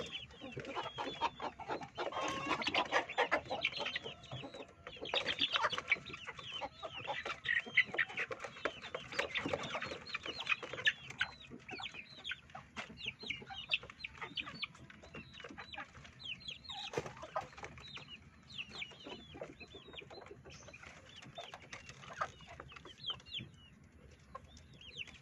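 A mixed flock of backyard chickens, large and small, clucking, with many short calls overlapping. The calls are busiest in the first half and thin out towards the end.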